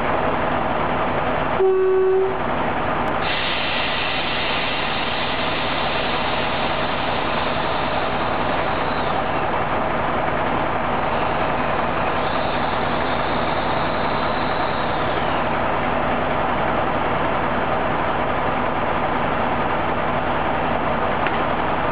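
Brossel ES401 catenary-maintenance railcar standing with its engine running steadily, heard from down at the bogie. A brief steady tone sounds about two seconds in.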